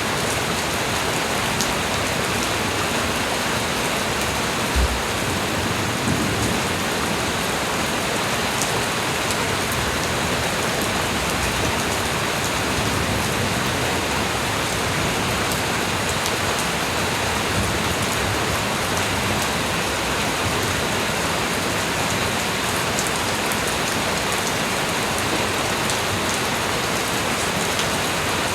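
Light rain falling steadily, an even hiss of drops with faint scattered ticks of individual drops. One brief low thump about five seconds in.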